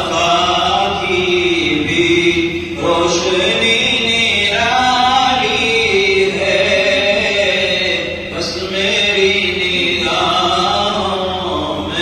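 A man chanting a naat, an Urdu devotional poem in praise of the Prophet, with no instruments. He sings it in long, drawn-out melodic phrases with short breaks between them.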